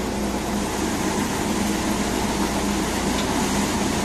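Mahindra 295 tractor engine running steadily and driving a five-fan paddy thresher, its drum and fans turning with it in a steady hum of constant pitch.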